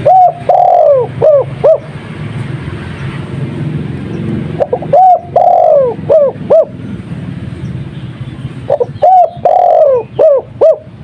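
Spotted dove (tekukur) singing the Madura-type 'kuk 2' coo. Three phrases come about four seconds apart. Each has a couple of short notes, a longer coo that falls in pitch, and then two or three short clipped coos.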